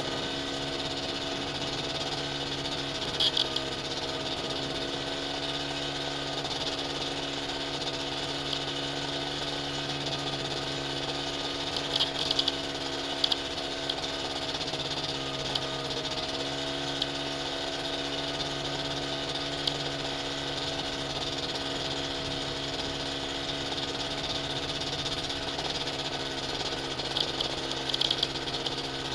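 Light aircraft's piston engine idling steadily, with a few short clicks scattered through.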